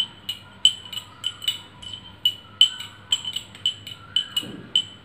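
Metal spoon stirring juice diluted with water in a small glass, clinking against the glass about four times a second.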